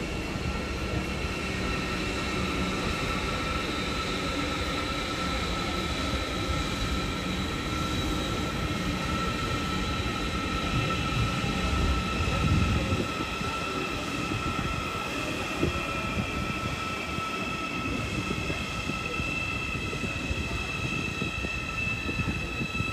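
Train in the station: a steady high whine of several tones, sinking slowly in pitch, over a low rumble, a little louder about halfway through.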